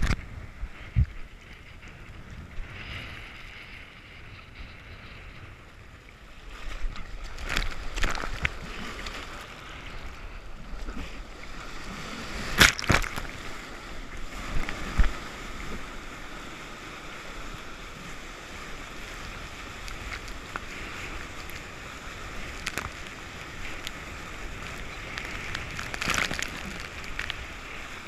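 Breaking surf and whitewater rushing and fizzing right at the microphone, as a bodyboard rides through foam, with sharp splashes hitting several times; the loudest comes about halfway through.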